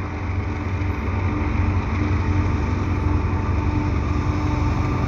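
Diesel locomotives of a freight train, a Canadian Pacific GE ES44AC in the lead, running past under power: a steady low rumble with a steady droning tone over it, slowly growing a little louder.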